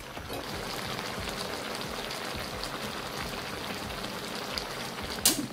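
Fish-and-vegetable broth bubbling at a boil in an aluminium wok: a dense, steady crackle of small pops. One sharp click comes near the end.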